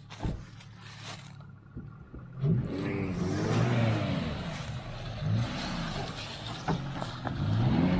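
Pickup truck engine idling, then revving up and falling back three times, starting about two and a half seconds in.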